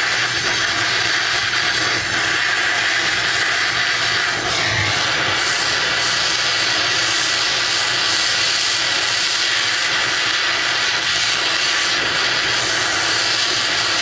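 Handheld gas torch burning with a steady hissing rush as its flame heats a mower engine's flywheel hub, to free the flywheel from the crankshaft under a puller.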